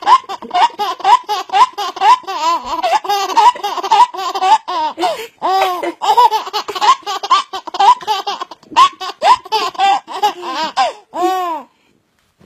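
A baby laughing hard: a quick run of high-pitched laughs, several a second, one after another, stopping near the end.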